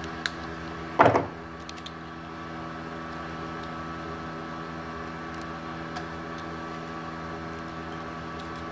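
Steady hum of a MultiPro TIG 200A-SA inverter welder running idle, its cooling fan and electronics on, with a few faint clicks as the torch's trigger switch is worked on with pliers and fingers. About a second in there is one short, louder sound with a pitch.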